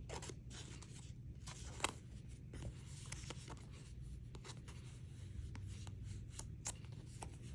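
Faint rubbing and a few light clicks of hands handling a trading card, over a low steady hum.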